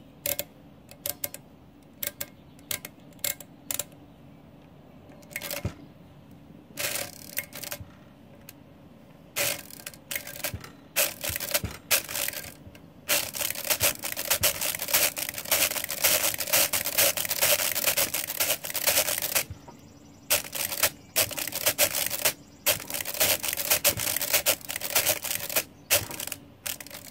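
Marchant XL pinwheel mechanical calculator clicking as it is worked by hand at its crank: scattered single clicks at first, then rapid, dense clicking from about halfway through, with a short break a little later.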